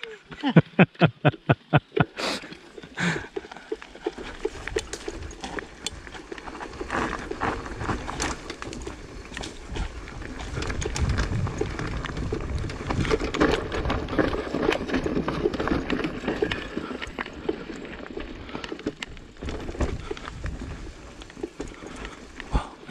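Mountain bike riding down a wet, rough trail: tyres rumbling and crunching over roots and stones, with the bike rattling and clicking throughout. It opens with a quick, regular run of about eight knocks in the first two seconds.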